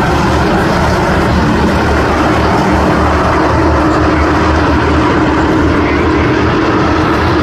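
A pack of old street sedans racing together, their many engines blending into one loud, steady drone.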